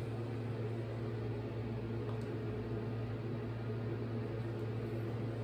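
Steady low hum with a faint hiss, typical of a bathroom ventilation fan running.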